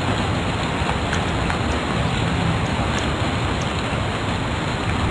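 Loud, steady hiss of recording noise with no speech, and a few faint computer keyboard clicks as a spreadsheet formula is finished.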